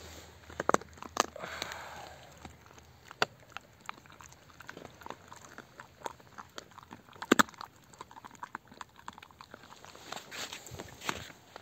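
Tornjak dog chewing raw meat and bone, with irregular sharp cracks and crunches as its teeth work the bone, the loudest about seven seconds in.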